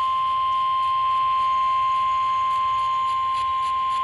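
NOAA Weather Radio 1050 Hz warning alarm tone sounding from a weather radio's speaker as one unbroken, steady tone. It is the signal that a warning broadcast follows, here a tornado warning.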